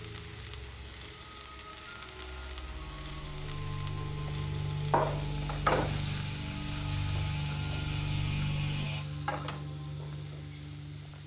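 Food sizzling as it fries in a pan on the stove, with three sharp clinks of a utensil against the pan about halfway through and near the end. A low steady tone sounds underneath.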